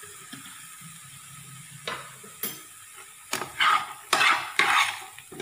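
Metal spatula stirring chopped vegetables and beaten egg in a frying pan over a faint steady sizzle. Two light taps come about two seconds in, then three quick scraping strokes of the spatula against the pan near the end.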